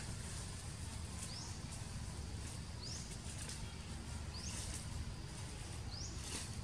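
A bird repeating a short, high, rising chirp about every one and a half seconds, over a steady low rumble.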